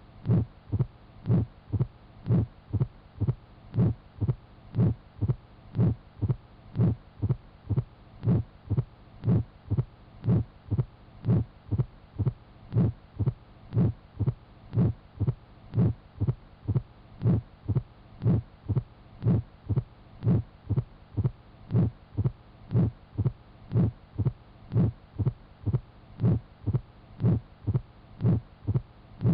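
Recorded heart sounds heard through a stethoscope: dull thuds in a steady, regular rhythm.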